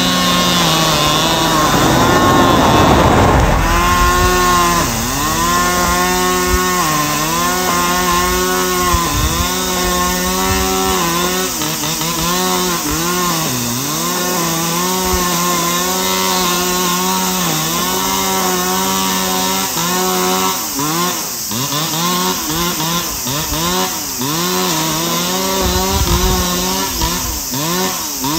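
Husqvarna 545FR 46 cc two-stroke brushcutter, fitted with an expansion-chamber exhaust, running at high revs while cutting grass with a nylon cord head. Its pitch dips and recovers every second or two. From about two-thirds of the way through, the dips come quicker, with sharp ticks of cord strikes.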